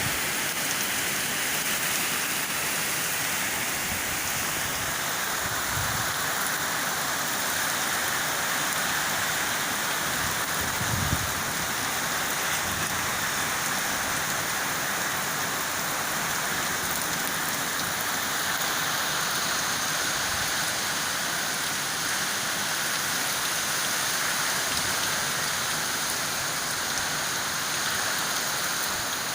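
Heavy rain pouring down steadily in a storm, driven by strong wind. There is a brief low thump about eleven seconds in.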